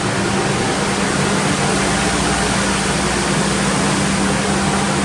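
A fan running: a loud, steady rush of air with a low hum underneath.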